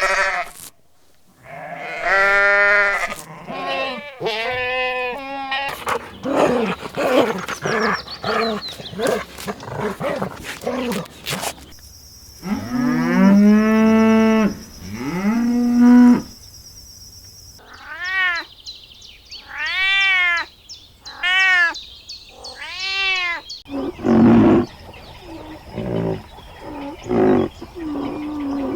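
A run of different farm animal calls cut one after another, including cattle mooing. Partway through comes a series of five short, arching, high-pitched cries, and near the end rougher, shorter calls.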